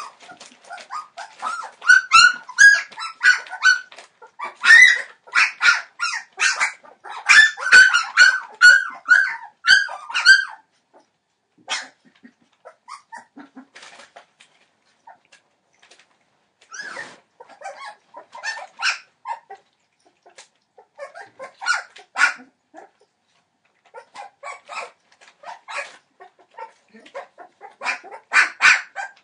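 Three-week-old Entlebucher Mountain Dog puppies crying in strings of short, high calls, thickest through the first ten seconds, then in scattered bursts.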